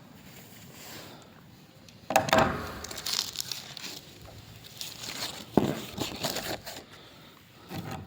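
Old paper funeral service sheet being handled and opened, its pages rustling and crinkling in irregular bursts that start about two seconds in.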